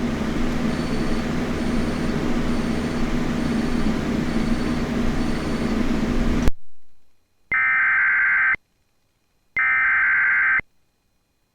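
About six seconds of steady rushing noise with a low hum, which cuts off sharply. After a second of silence come two one-second bursts of EAS SAME digital data tones, a second apart: the coded alert header that opens a broadcast special marine warning.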